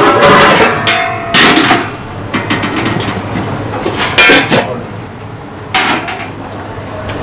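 Metal serving utensils clanking against steel pots and dishes: about four sharp knocks, the loudest near the start and about four seconds in, over a steady low hum.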